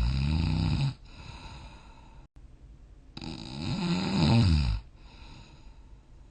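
A sleeping person snoring: a loud, wavering snore ending about a second in, a quieter breath, then another loud snore that rises and falls in pitch from about three to five seconds in.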